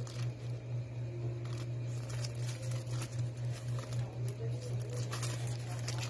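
Clear plastic packaging of phone cases crinkling and rustling as it is handled, in scattered crackles that grow denser near the end. A steady low hum runs underneath.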